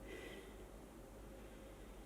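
Near silence: faint room tone with no distinct sound.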